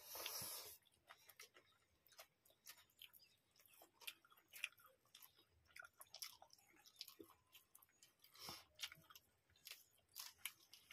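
Faint close chewing and wet mouth sounds of people eating rice and okra curry with their hands: scattered small smacks and clicks, with a short louder burst of noise right at the start and another about eight and a half seconds in.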